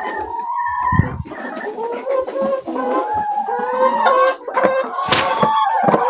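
Several hens calling: overlapping drawn-out calls that waver and glide in pitch, mixed with clucks. A short sharp knock comes about five seconds in.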